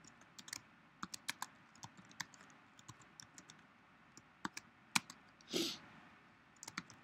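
Irregular keystrokes on a computer keyboard as text is typed, with a brief hiss about five and a half seconds in.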